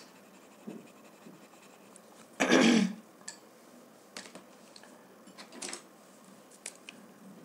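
Quiet handling noise of drawing tools on a table: a few faint clicks and taps, with one short, loud rush of noise about two and a half seconds in.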